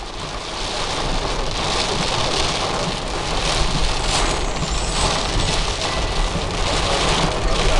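Heavy rain pelting a car's windshield and roof, heard from inside the moving car, as a dense steady hiss with a low rumble underneath.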